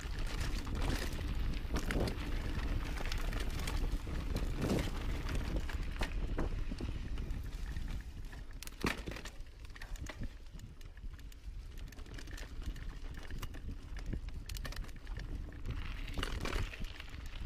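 Mountain bike ridden fast over a forest dirt trail: tyres rolling over dirt and leaves, with frequent knocks and rattles from the bike over bumps and wind rumbling on the microphone. It gets quieter for a few seconds in the middle as the bike slows.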